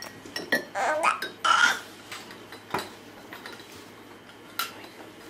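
Scattered light clinks and knocks of cups and spoons, with a short vocal sound about a second and a half in, the loudest moment; single clicks follow near three and near four and a half seconds.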